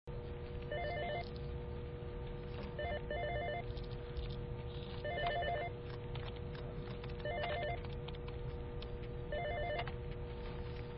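Electronic telephone ringing with a fast warbling trill, five rings about two seconds apart, over a steady low hum.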